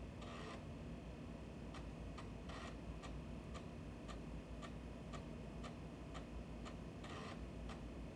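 Apple //e disk drive reading while ProDOS boots and ProTERM loads: evenly spaced clicks, about two or three a second, broken by short rasping bursts of head movement near the start, about two and a half seconds in and again about seven seconds in.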